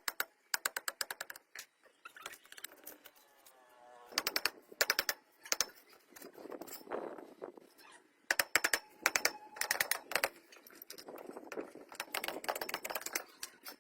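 Workshop hand-tool work on a motorcycle: repeated bursts of rapid metallic clicking, several runs of quick clicks a few seconds apart.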